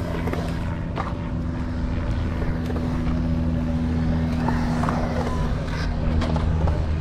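A steady low motor hum, holding an even pitch, with a few short, sharp clacks over it.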